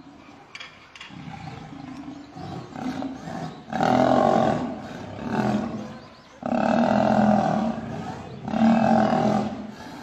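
Lions snarling and growling in a fight between lionesses and a male lion. Lower growling comes first, then several loud, harsh snarls in bursts from about four seconds in.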